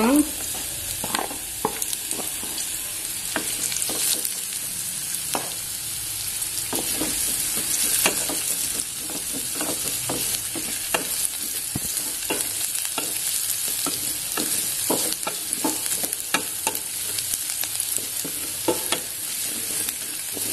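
Chopped onion, garlic and scallions sizzling in butter and oil in a metal pot. A wooden spatula scrapes and knocks irregularly against the pot as the mix is stirred.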